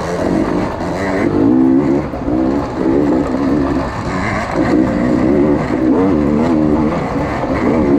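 Off-road dirt bike engine revving up and down repeatedly, its pitch rising and falling over and over as the throttle is worked.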